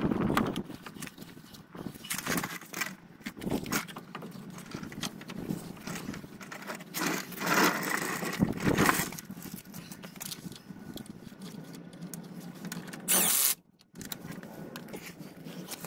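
Irregular metallic clinks, knocks and scrapes as a new driveshaft's CV joint is worked into the wheel hub of a van's front suspension. Near the end there is a short, loud burst of noise that cuts off suddenly.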